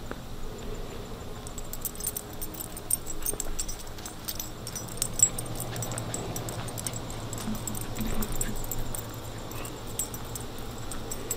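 Light metallic jingling: many small, irregular clinks in quick succession, starting about a second and a half in and going on as the camera moves.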